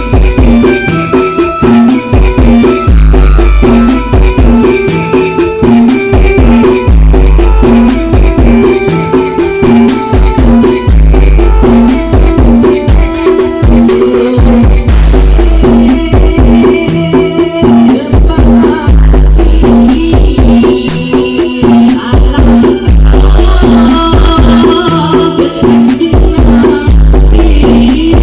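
DJ dance music played loud through a carnival sound system during a sound check, with heavy sub-bass pulses and a steady beat.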